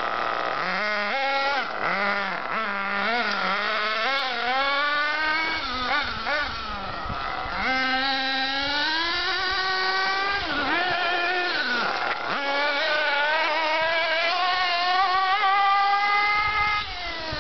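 Small two-stroke nitro engine of an HPI Trophy 3.5 RC buggy revving up and down as the buggy is driven, its pitch swooping with each throttle blip and later climbing in longer pulls at higher speed. The pitch drops away shortly before the end.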